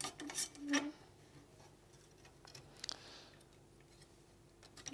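Steel banding strap clicking and scraping against its metal clip and the bracket as it is threaded back through and handled around a post: a cluster of sharp metallic clicks in the first second, another about three seconds in and one near the end.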